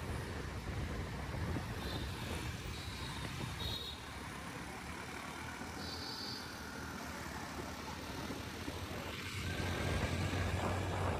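City road traffic: a steady rumble of vehicle engines and tyres, with a few short high-pitched beeps over it.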